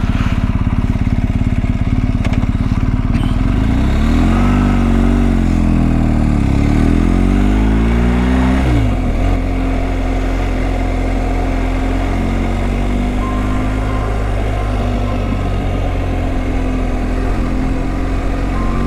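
BMW GS Adventure motorcycle engine running on the road. About four seconds in, its pitch rises and falls twice as the revs change, dropping sharply around halfway, then it settles into a steady cruise.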